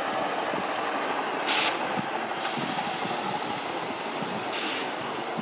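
Diesel multiple unit running at a station platform, with sharp air hisses about a second and a half in, a longer hiss from about two and a half seconds, and another near the end.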